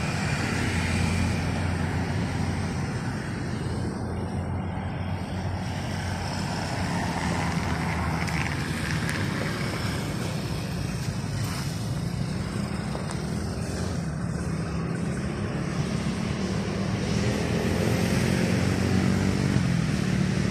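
A motor running steadily, a low even hum under outdoor air noise, with a second hum line coming in louder near the end.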